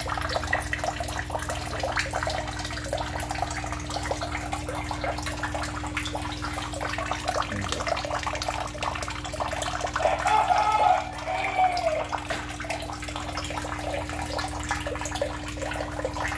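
Water running and splashing in a shallow tiled fry tank, like a tap flowing, over a steady low hum.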